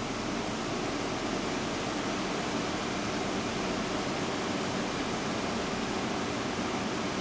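Steady rushing hiss of a car's air-conditioning blower, heard inside the cabin.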